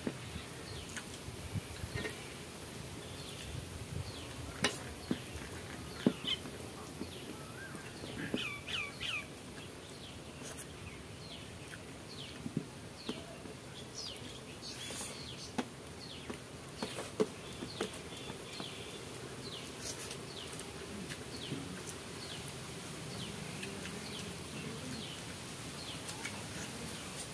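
Birds chirping now and then, over sharp clicks and smacks of people eating rice with their hands from steel plates. The clicks are the loudest sounds.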